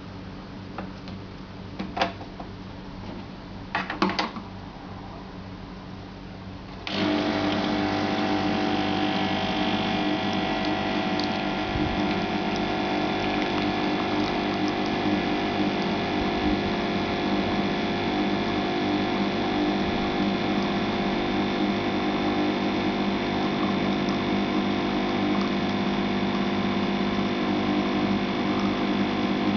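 Mokador Pepita espresso machine: a low hum with a few sharp clicks, then about seven seconds in its pump switches on and buzzes steadily and loudly, pumping water through to brew an espresso.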